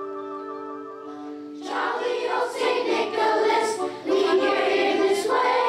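Instrumental accompaniment holding sustained notes, then about a second and a half in a children's choir of fourth and fifth graders comes in singing over it, with a short breath between phrases near the end.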